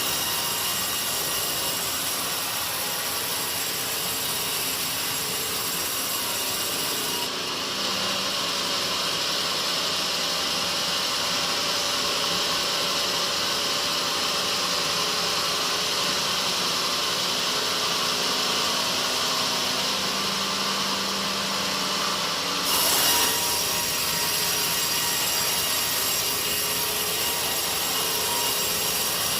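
Sawmill saw cutting through a teak log: a steady, unbroken cutting noise. Its character shifts about seven seconds in and again about twenty-three seconds in, where it briefly gets louder.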